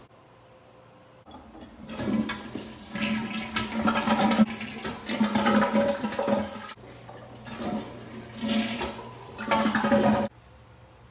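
Freshly set toilet flushing: water rushing in two loud surges, the first starting about two seconds in and the second near the end, then cutting off suddenly.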